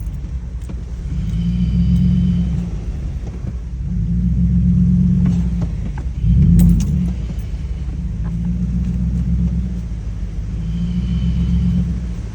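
Vehicle interior on a rough, flooded dirt road: engine and tyres rumbling low, swelling and easing as it rolls through, with a sharp thump about halfway through as it jolts over a bump or hole.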